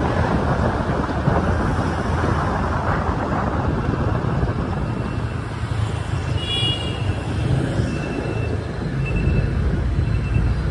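Steady city street traffic noise with wind rumbling on the microphone. In the second half, faint short high beeps repeat about once a second.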